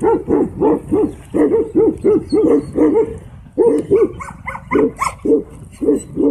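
Dog barking rapidly and repeatedly, about three barks a second, with a short break about three and a half seconds in.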